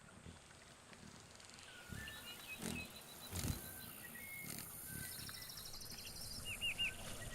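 Quiet natural ambience: scattered bird chirps, short whistles and a fast trill over a faint low rumble with a few soft thuds, slowly growing louder.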